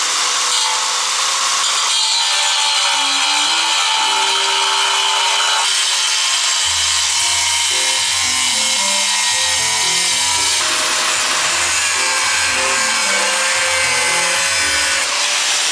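Angle grinder with a thin cutoff disc cutting through square steel tubing: a steady, hissing grind. Background music plays over it, with a bass line coming in a little before halfway.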